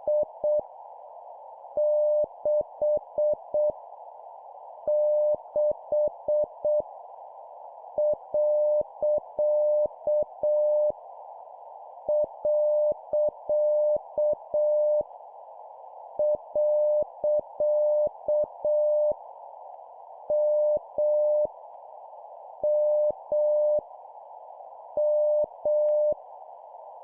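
Morse code (CW) sent at a slow 7 words per minute: a single steady beep keyed into short dits and longer dahs, spelling out random letters, numbers and punctuation in groups with pauses between them. A constant hiss, like receiver noise, runs under the tone.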